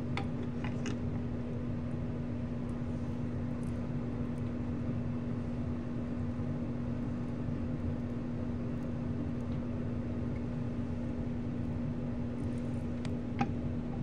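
Bathroom exhaust fan running with a steady hum over a low rumble. There are a few light clicks just after the start and one near the end.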